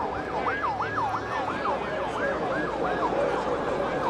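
Siren sounding a fast yelp, its pitch sweeping up and down about three times a second.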